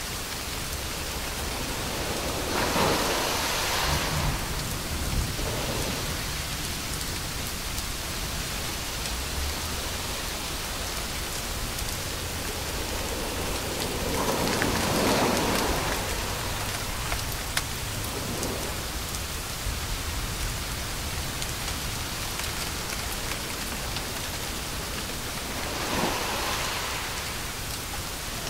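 Steady rain-like hiss of a white noise track for soothing babies to sleep. It swells into a louder whoosh three times: about three seconds in, around the middle, and near the end.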